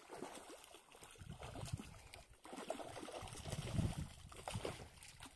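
Hooked fish thrashing and splashing at the surface in shallow, weedy water as it is reeled toward the shore, in irregular splashes, loudest about four seconds in.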